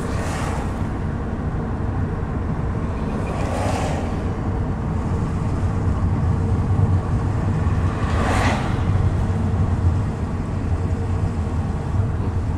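Steady low rumble of road and engine noise inside a moving car, with three brief whooshes: near the start, about four seconds in and about eight seconds in.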